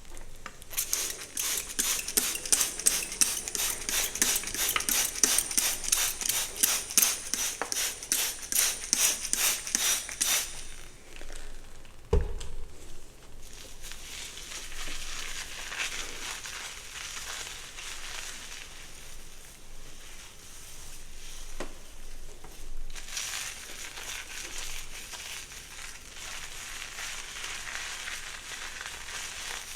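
A hairbrush stroking through dry hair: quick, regular strokes, about three a second, for the first ten seconds, then slower, softer scratching through the hair. A single thump comes about twelve seconds in.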